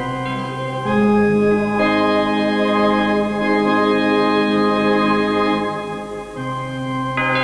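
Organ music: slow, held chords, changing about a second in and again near the end.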